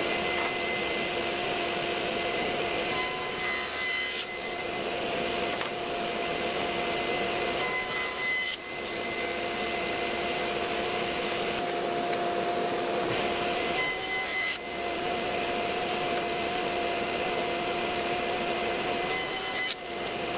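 Table saw, a SawStop, running with a steady whine while plywood is crosscut on a sled. Four times, about every five seconds, the sound briefly changes as the blade cuts through the wood.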